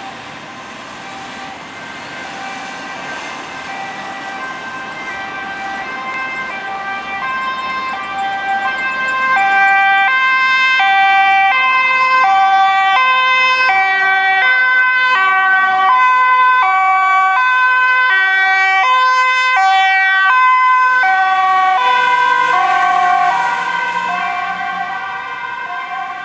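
Dutch ambulance two-tone siren alternating between a high and a low note, the sign of an urgent A1 run with blue lights. It grows louder as the ambulance approaches, is loudest from about ten seconds in, then fades near the end as it moves away.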